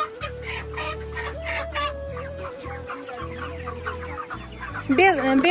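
A large flock of broiler chickens clucking and cheeping, many short calls overlapping.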